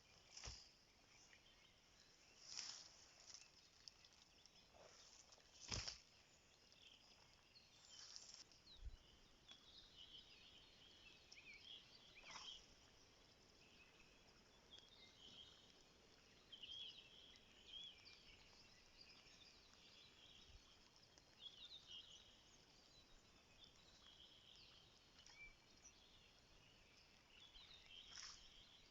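Faint outdoor ambience of small birds chirping and calling, with a few soft clicks now and then.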